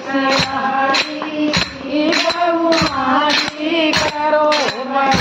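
Women singing a devotional folk bhajan together, with a pair of small brass hand cymbals (manjira) struck in a steady beat, a bright clash roughly every half second.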